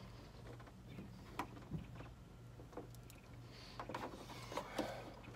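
Faint clicks and rustling from hands pushing a small, tight-fitting fastener into a plastic Bushwacker fender flare at the wheel well, over a low steady hum.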